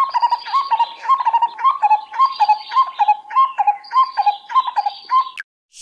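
A barbet calling: a fast, even run of repeated hooting notes, about two or three a second, which stops about half a second before the end.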